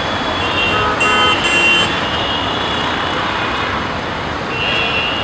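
Dense road traffic of cars and motorcycles passing close by, a steady rush of engines and tyres. Horns honk several times between one and two seconds in, and again near the end.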